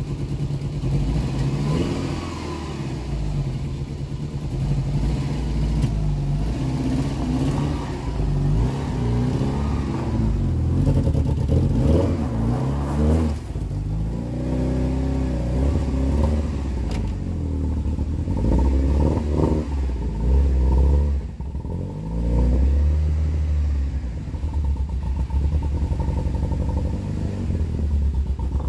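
Volkswagen Golf GTI Mk2 16v's 16-valve four-cylinder engine, with Bosch K-Jetronic injection, running as the car drives slowly. Its pitch rises and falls several times with revving between about 8 and 20 seconds in. This is an engine its owner says still has a misfire.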